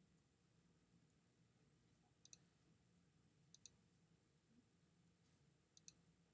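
Computer mouse button clicking: three quick double clicks spread through a near-silent room.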